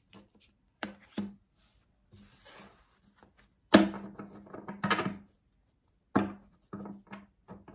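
A tarot deck being shuffled by hand, the cards slapping and knocking against each other and the wooden desk in a series of about eight separate knocks; the loudest come around the middle.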